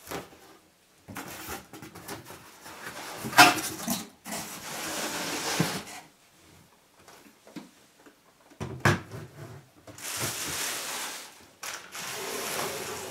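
A cardboard box and its packaging being handled and slid across wooden floorboards. Scraping and rustling come in two runs, with a sharp knock about three and a half seconds in.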